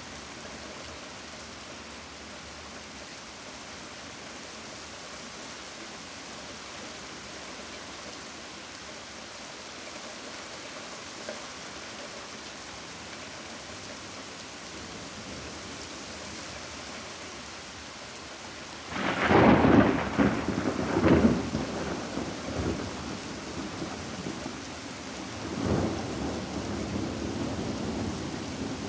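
Steady rain falling, then about two-thirds of the way through a sudden loud thunderclap that rolls on in several peals. A second, smaller rumble of thunder follows near the end.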